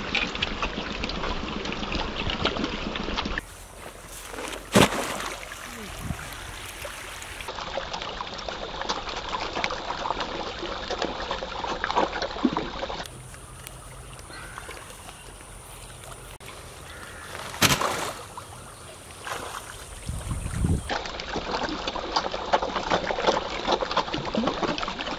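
A dense crowd of catfish splashing and thrashing at the pond surface in a feeding frenzy over a heap of feed pellets: a continuous crackling splash that thins out twice and comes back. Two sharp knocks stand out, one a few seconds in and one past the middle.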